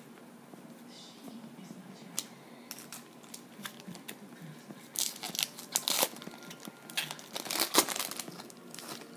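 Plastic foil wrapper of a baseball card pack being torn open and crinkled: a few scattered crackles, then a dense run of crinkling in the second half, loudest near the end.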